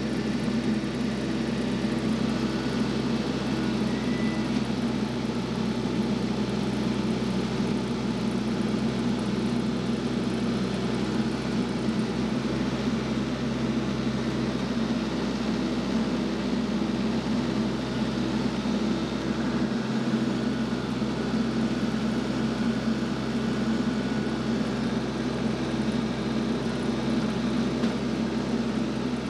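An engine running steadily at a constant speed, with an even drone that does not rise or fall.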